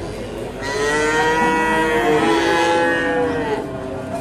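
Cattle mooing: one long, drawn-out moo begins just under a second in and lasts about three seconds, its pitch arching up and then down.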